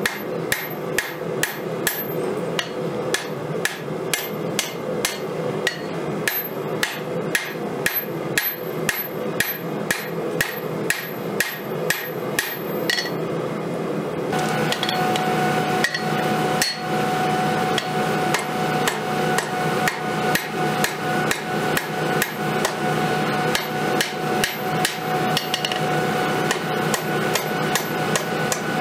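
Hand hammer striking red-hot steel on an anvil, in a steady rhythm of about two blows a second as a khopesh blade is forged. About halfway through, a steady hum with a thin whine comes in underneath the blows.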